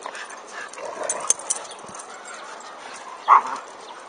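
Dogs at play: one short, loud bark about three seconds in, with fainter short dog sounds about a second in.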